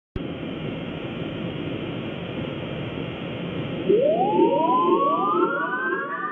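Sound-designed blizzard wind: a steady rushing gale starts abruptly, and about four seconds in a rising howling whistle joins it, repeated by a trail of echoes and louder than the rush.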